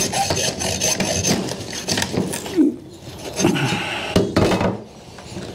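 Hacksaw cutting through an electric trolling motor's composite fiberglass shaft, wires inside, in quick back-and-forth strokes. After about two and a half seconds the sawing stops, and a few knocks and handling noises follow.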